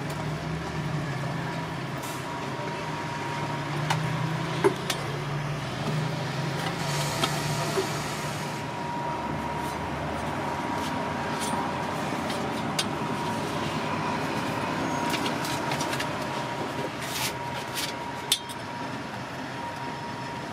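Street-stall ambience: a steady background hum, with a deeper drone for roughly the first eight seconds and a faint steady high whine, broken by scattered sharp clicks and taps of a spoon and utensils on plastic containers and the board.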